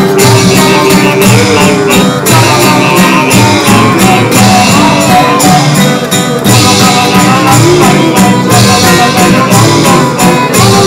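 Loud music with plucked guitar and a melody line over a steady beat.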